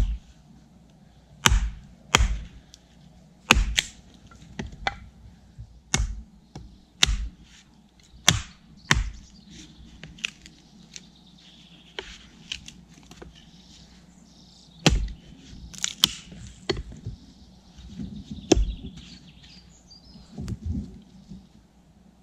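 Wooden baton knocking on the back of a blade to drive it into wood while cutting a notch: sharp wooden knocks, about fifteen, coming singly or in quick pairs with pauses between.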